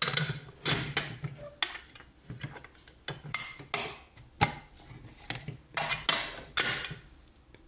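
Prestige stainless-steel pressure cooker being closed: a run of sharp metal clinks and knocks as the lid goes on and is locked, and the whistle weight is fitted onto the vent near the end.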